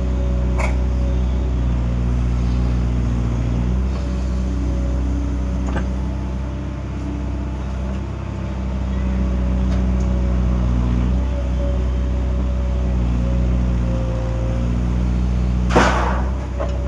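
Excavator's diesel engine running steadily, its note shifting a few times as it works. Several short knocks sound over it, with one loud sharp knock about a second before the end.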